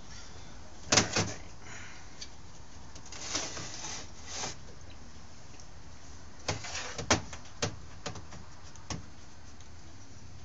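Small parts and hand tools handled on a workbench while a chainsaw carburetor is worked on: a sharp double knock about a second in, a soft scraping stretch around three to four seconds, then a scatter of light clicks from about six and a half to nine seconds.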